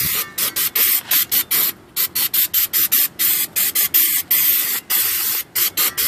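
Aerosol can of brake cleaner spraying a rear brake caliper bracket and rotor in many short spurts, about two or three a second, some held a little longer.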